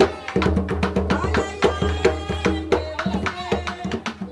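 Martinican bèlè music: a hand-played bèlè drum and sharp wooden clicks in a fast, dense rhythm.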